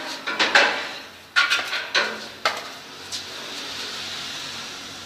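A broom clattering and knocking against a frame and the tiled floor: a run of sharp knocks in the first three seconds, then softer scraping of the bristles over the floor.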